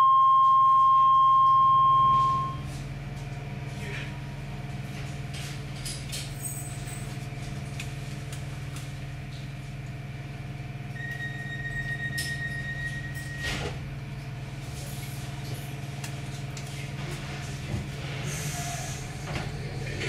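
Docklands Light Railway train standing at a platform, its equipment giving a steady low electrical hum. It opens with a loud, steady electronic tone lasting about two and a half seconds; later a fainter, pulsing higher tone sounds for about two seconds and ends in a sharp click.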